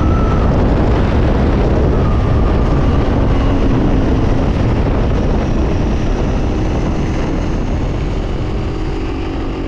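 Loud, steady wind rush from a motorcycle moving at road speed, with the Honda 300 Rally's single-cylinder engine running faintly beneath it.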